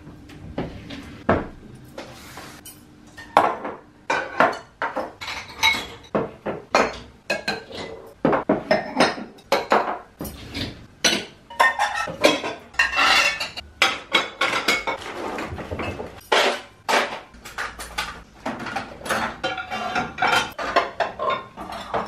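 Dishes, glasses and cutlery clinking and knocking against each other and against the dishwasher racks as a dishwasher is unloaded and its contents put away, in quick irregular strokes.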